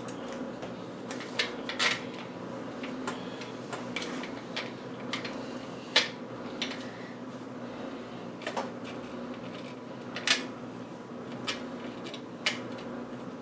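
Scattered light clicks and taps of screws and a metal scooter deck plate being handled and fitted by hand, irregular and a few seconds apart, over a steady low hum.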